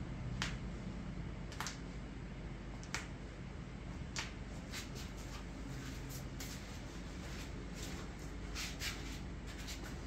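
Sharp single cracks as the patient's toe joints are pulled, one about every second and a quarter, followed in the second half by quicker clicks in pairs and small clusters, over a low steady hum.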